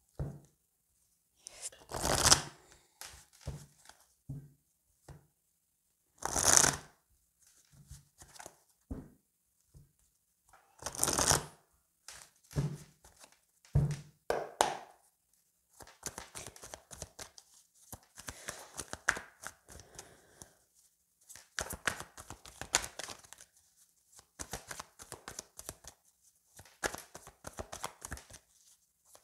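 A deck of oracle cards shuffled by hand: three loud swishes of the cards within the first dozen seconds, then from about halfway a long run of quick flicking and rustling as the cards are shuffled over and over.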